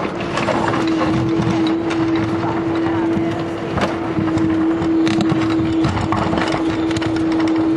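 Mini excavator running with a steady hum, its bucket scraping and knocking in the soil as it digs out a trench.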